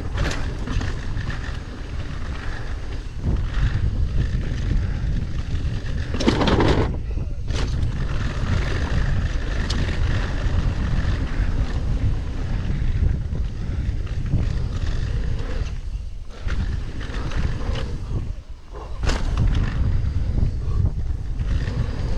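Mountain bike riding fast down a dirt trail: wind rushing over the body-mounted camera's microphone, with tyres on loose dirt and the bike rattling. A loud burst comes about six seconds in, and sharp clatters about nineteen seconds in.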